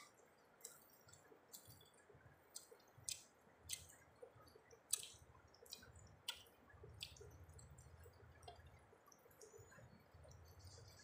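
Faint, irregular wet mouth clicks and smacks of a person chewing a mouthful of rice eaten by hand.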